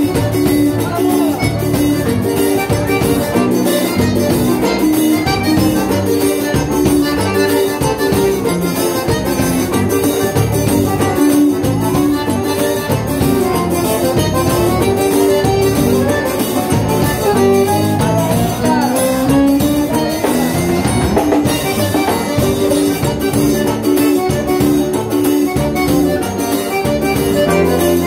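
Live band music led by a Scandalli piano accordion, over bass guitar and drums keeping a steady beat. About two-thirds of the way in there is a rising run of notes.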